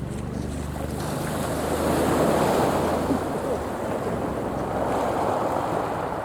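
Sea waves washing onto a beach, swelling loudest about two seconds in and again near the end. A steady low hum underlies the first half and fades out a little past halfway.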